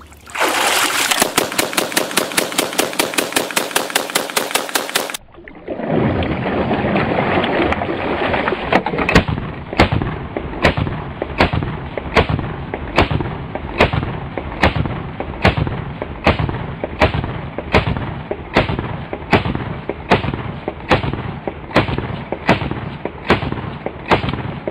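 AA-12 fully automatic 12-gauge shotgun firing, still dripping from ten minutes submerged in water and cycling without a stoppage. A fast, even burst of shots is followed a moment later by a long run of evenly spaced shots, about two a second.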